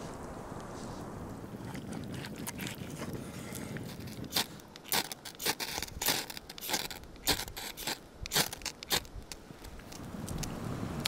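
Ferro rod scraped with a striker about a dozen times in quick, uneven strokes, sharp rasping scrapes throwing sparks onto wood shavings to light the tinder. A steady low rumble of wind runs under it.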